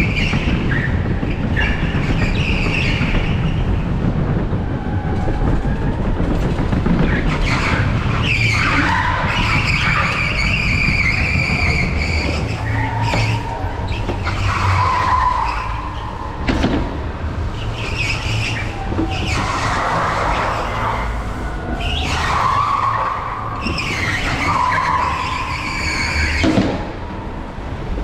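Electric go-kart driven hard on an indoor tarmac track: a constant low rumble of tyres and chassis, with repeated tyre squeals lasting a few seconds each as it is pushed through the corners.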